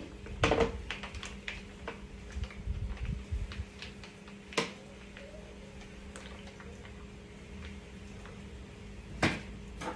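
Plastic mayonnaise pouch being opened and squeezed by hand: scattered crinkles and small clicks, busiest in the first few seconds, with one sharp click about halfway through and another near the end. A faint steady hum runs underneath.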